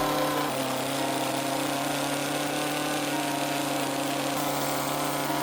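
Small two-stroke carving chainsaw running steadily, its pitch dropping a little about half a second in.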